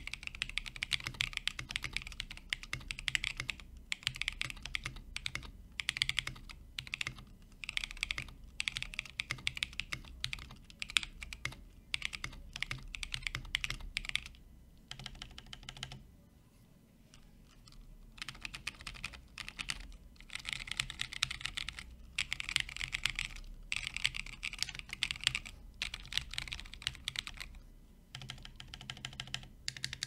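Typing on a Kiko's Lab KL-90 mechanical keyboard built from the FR4-plate kit, with Mint Holy Panda tactile switches, C3 V2 stabilizers lubed with 205g0 and KAT Milkshake keycaps. Fast runs of key clacks with a short pause about halfway through.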